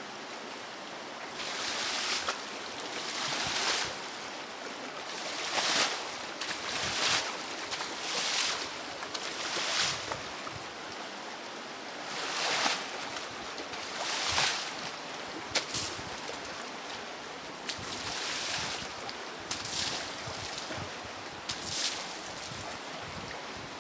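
Rough, churning river water rushing steadily, with waves splashing and breaking in surges every second or two.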